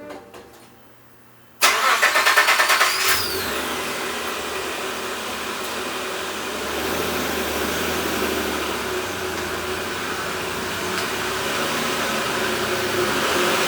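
Nissan Pathfinder's VG30 V6 engine cranked by the starter for about a second and a half, then catching with a brief rising-and-falling squeal and settling into a steady idle.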